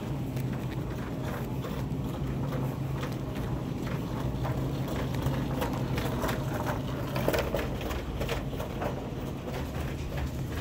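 Supermarket room tone: a steady low hum from the refrigerated display cases, with scattered light clicks and knocks.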